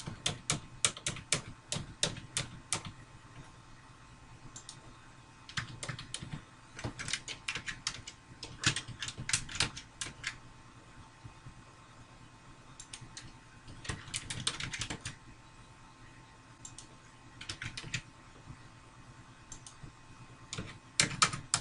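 Typing on a computer keyboard in bursts of rapid keystrokes, with pauses of a few seconds between runs, as text is entered into form fields.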